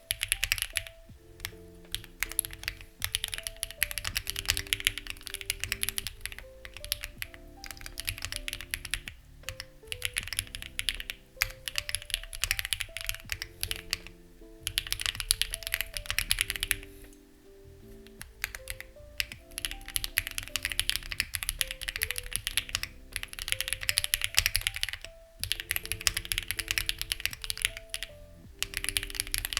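Typing on a Lucky65 v2 mechanical keyboard with stock, unlubed HMX Ziwei switches: quick runs of keystrokes a few seconds long, broken by brief pauses. Soft background music with a slow melody plays underneath.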